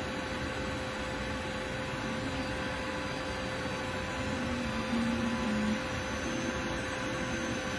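TENLOG 3D printer running a print: its fans make a steady hum while the stepper motors give short, low whines that step from pitch to pitch as the head and bed move, loudest about five seconds in.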